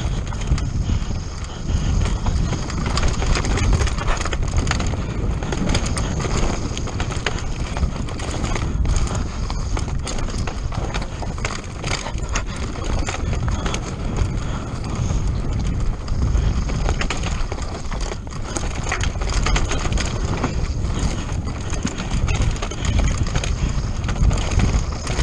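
Downhill mountain bike descending a rough, rocky trail at speed: a steady rumble of tyres on dirt and stones under a constant rattle and knocking of the bike's chain, frame and suspension over rocks and roots.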